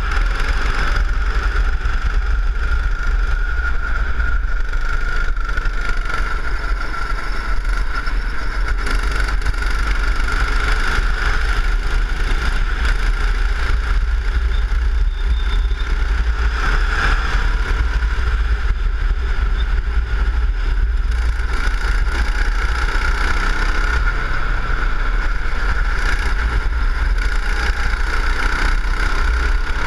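Go-kart engine running at speed through a lap, heard from the kart itself with a steady heavy rumble of wind on the microphone. The engine note rises and falls only slightly through the corners.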